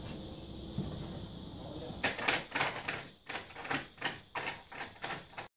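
A plywood cat-flap panel is pushed up into a sliding door's frame, making a quick run of light knocks and rattles, about three a second. Before that there is a short stretch of steady background hum.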